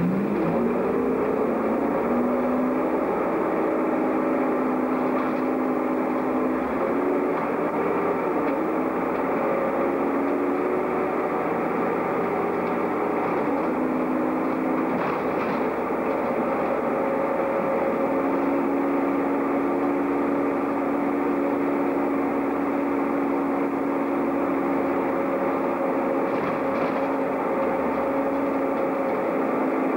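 Bus engine and transmission running as the bus drives along, with a whine that climbs in pitch as it pulls away and shifts pitch several times with the gear changes.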